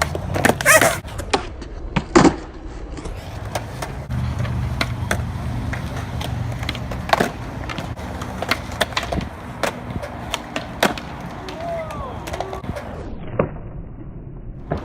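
Skateboards at a skate park: a steady rumble of wheels rolling, broken by many sharp clacks of boards popping and landing, the two loudest in the first couple of seconds.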